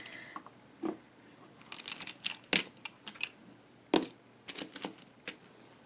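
Pens and wooden pencils clicking and clattering against one another as a hand picks through a loose pile. A scatter of light knocks, with two sharper ones about two and a half and four seconds in.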